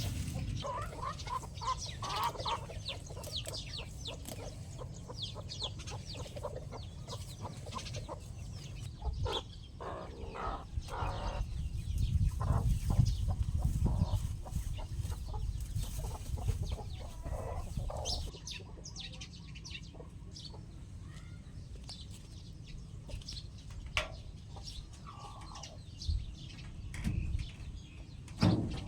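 Chickens clucking and calling, many short calls scattered throughout, over a steady low rumble, with a few sharp knocks near the end.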